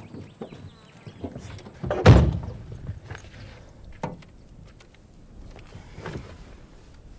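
A car door is pulled shut about two seconds in: one heavy thud. A few smaller knocks and rustles follow as someone settles into the seat.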